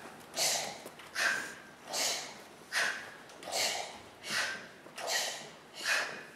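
Children's voices making rhythmic breathy huffs together, about one every three-quarters of a second, alternating a lower breath with a higher, hissier one.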